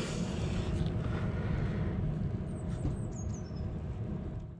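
Steady low outdoor rumble of wind on the microphone, with a few high, thin, falling bird chirps about two and a half to three and a half seconds in; the sound fades out just before the end.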